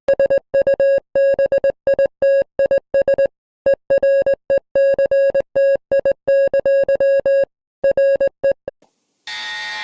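Synthesized emergency-alert beep, one buzzy mid-pitched tone switched on and off in an irregular string of short and long beeps, like Morse code. It stops shortly before the end, and after a brief gap a fuller, chord-like alarm tone begins.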